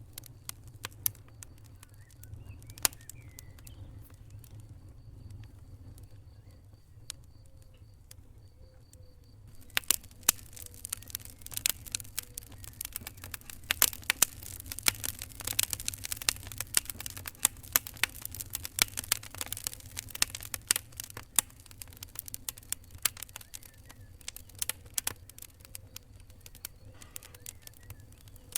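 Fire crackling: scattered pops at first, then about ten seconds in a dense, louder run of crackles that thins out again near the end, over a steady low rumble.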